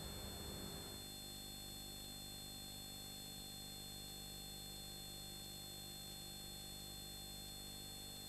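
Faint steady electrical hum and hiss of the recording's background noise, with no other sound; from about a second in it turns completely even.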